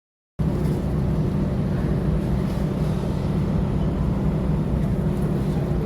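Steady low drone of a car ferry's engines. It cuts in abruptly about half a second in.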